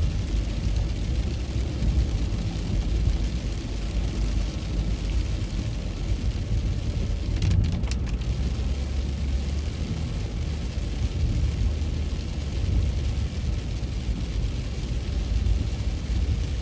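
Car driving on a wet road in the rain, heard from inside the cabin: a steady low rumble of road and engine noise with the hiss of rain and tyre spray. About halfway through, a brief scrape as the windshield wipers sweep across the glass.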